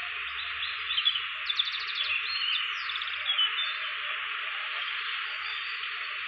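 Steady chirring of insects, with a few short bird-like chirps between about one and three and a half seconds in.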